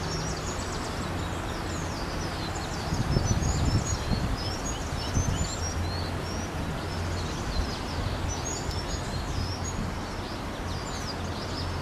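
Many birds chirping: a scatter of short, high chirps and tweets over a steady outdoor noise with a low hum. The background swells briefly about three seconds in.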